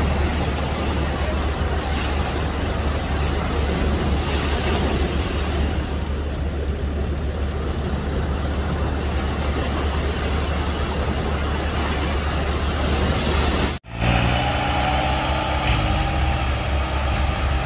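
Steady low rumble and rush of surf and wind on the microphone. After a sudden break about three-quarters of the way through, the steady hum of an idling engine comes in under it.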